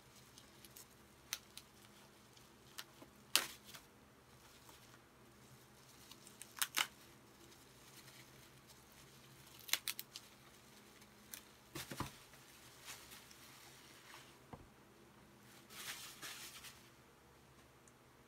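Bubble wrap being pulled open by hand around a small box: scattered sharp crackles and snaps of the plastic, with a longer stretch of crinkling near the end.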